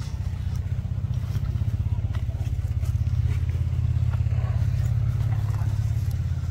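An engine running steadily, a low hum with a fast even pulse, with a few faint clicks over it.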